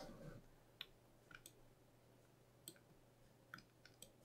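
Faint computer mouse clicks, about seven, scattered unevenly over near silence and a faint steady low hum.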